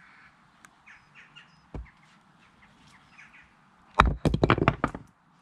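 Wooden toy axe striking a magnetic two-piece wooden toy log: a sharp knock, then the wooden halves clatter down in a quick run of knocks for about a second. Birds chirp faintly before it, and a single dull knock comes about two seconds in.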